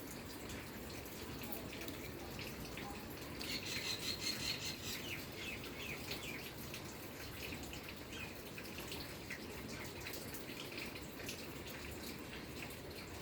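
Ringneck parrot nibbling and pecking with its beak: faint irregular clicks, with a short chirping call about four seconds in.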